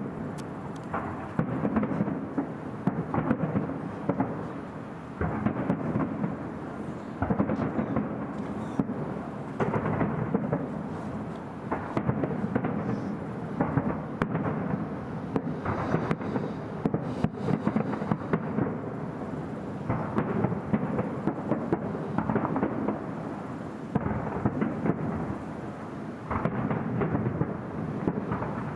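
Fireworks display, with shells bursting one after another in frequent overlapping bangs over a continuous booming rumble. The sound is mostly low, as from a distant show.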